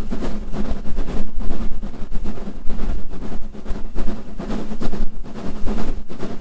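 Southern Railway S15 class 4-6-0 steam locomotive 506 working hard up a steep gradient, its exhaust beating in a fast, steady run of chuffs. A low rumble of wind buffets the microphone underneath.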